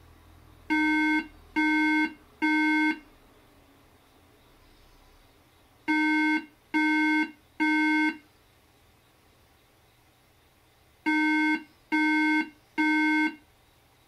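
Mid-2011 iMac A1311 sounding its error beep: three steady tones of about half a second each, with the group of three repeating about every five seconds, three times in all. Three repeating beeps is the iMac's startup warning that its memory (RAM) has failed its check.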